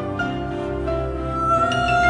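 Instrumental soundtrack music: slow held notes, with a melody line that rises slightly about halfway through and holds.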